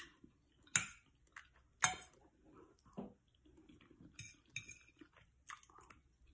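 Cutlery clinking and tapping against a plate while eating: three or four sharp clinks about a second apart, then softer taps.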